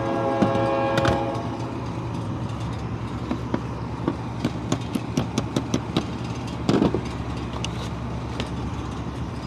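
A steady low mechanical hum with many light, scattered clicks and taps, and a short louder rustle about seven seconds in. A chord of steady tones fades out in the first second or so.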